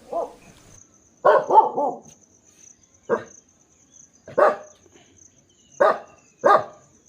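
Village dog barking: short single barks with a double bark about a second in, around seven in all at irregular gaps.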